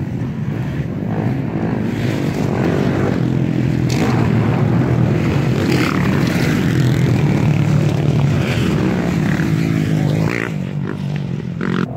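Several motocross bikes' engines revving as riders pass on the dirt track, louder through the middle and easing off near the end.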